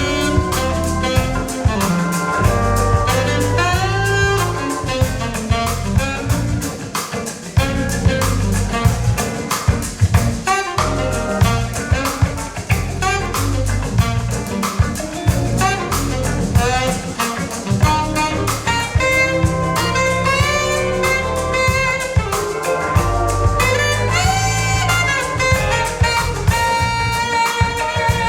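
Jazz instrumental music with drum kit, bass and a melody line, played back over a hi-fi system's loudspeakers.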